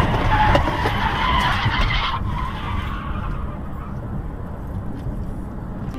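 Car tyres skidding on the road, a harsh hiss that cuts off about two seconds in, followed by the low, steady road rumble of the car driving on.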